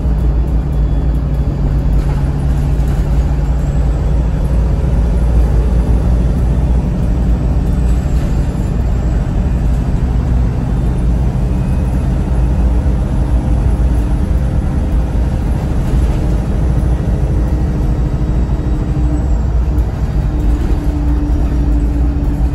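VDL SB200 single-deck bus with a Voith four-speed automatic gearbox driving along, a steady engine and road rumble heard from on board. In the second half a faint steady whine sits over the rumble.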